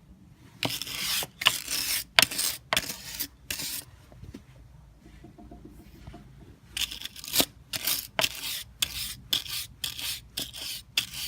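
Wire brush scrubbing the splines of a John Deere Model A tractor's rear wheel mount in short strokes, clearing out dirt and old grease. A run of strokes, a pause of a couple of seconds, then faster strokes, about two a second.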